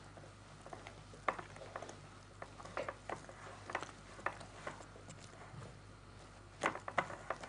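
Wire hand whisk stirring a thick dough in a glass bowl: irregular clicks and taps of the whisk against the glass, with a quick run of strikes near the end.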